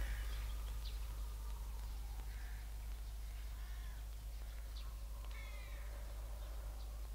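Scattered short bird calls, about six over the few seconds, some bending down in pitch, over a low steady hum.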